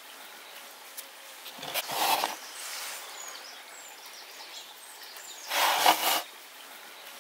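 A hand rubbing and raking a dry crumb mixture in a glass baking dish, giving two loud scratchy rustles, about two seconds in and again near the end, over faint bird chirps.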